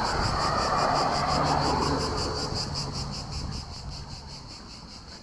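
Insects chirring in a fast, even pulse of several beats a second, while a passing vehicle fades away over the first couple of seconds.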